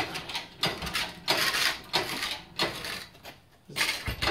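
Irregular metallic clanks and rattles, about five in a few seconds, from an engine crane and its lifting chain as it lifts a Toyota Starlet engine and the engine shifts on the chain while being worked free.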